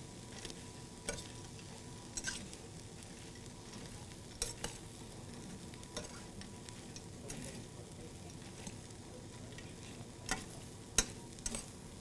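A spoon stirring butter-coated cereal squares and grated parmesan in a metal skillet, with irregular scrapes and clicks of the spoon against the pan over a low, steady sizzle from the skillet.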